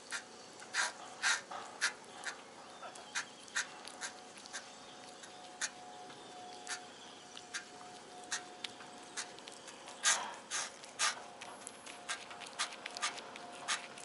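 Irregular soft clicks and rustles close to the microphone, as a cat's fur and a stroking hand brush against it, over a faint steady hum.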